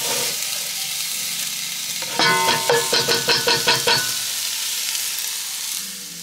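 Chopped onion being scraped off a wooden cutting board into an enamelled pot, over a steady hiss. About two seconds in, the board knocks against the pot in a quick run of about eight ringing taps lasting under two seconds.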